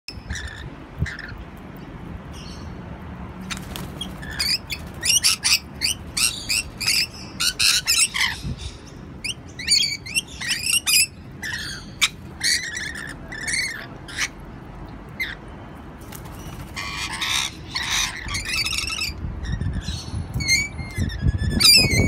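Rainbow lorikeets giving short, harsh squawking calls in quick runs while they feed, sparse at first, then busy, with a brief lull about two-thirds of the way through.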